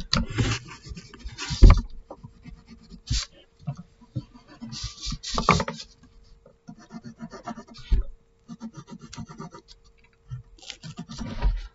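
Pencil scratching on paper in quick, irregular strokes close to the microphone, with rubbing of hand and paper and a couple of soft knocks on the table. A faint steady hum runs underneath.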